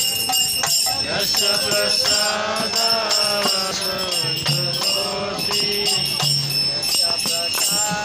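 Devotional kirtan: voices singing a chant to a mridanga drum, with small hand cymbals (karatalas) ringing steadily over the strokes.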